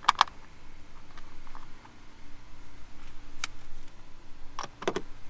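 Light clicks and taps from handling small hardware as a grounding screw is refitted by hand, over a faint steady hum. There are two sharp clicks at the start, one about three and a half seconds in, and two more near the end.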